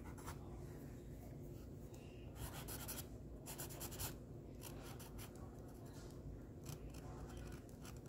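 Black felt-tip Sharpie marker scratching in short, faint strokes on a painted canvas, drawing small lines.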